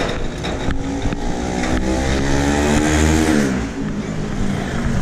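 A motorcycle passing close by: its engine note climbs steadily and grows louder, then drops in pitch about three and a half seconds in as it goes past, and fades.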